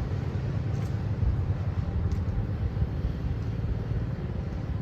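Steady low rumble of outdoor background noise, with a couple of faint high ticks.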